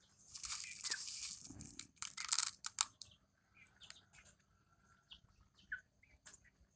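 Chickens pecking at grains of rice: scattered quick taps and crunches, with a few soft chirps. A rustling hiss fills the first two seconds, and a quick run of sharper taps follows.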